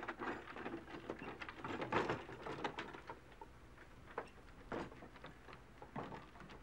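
Wooden horse-drawn cart rattling and knocking as a horse pulls it off: a dense run of clattering knocks in the first few seconds, then a few single knocks.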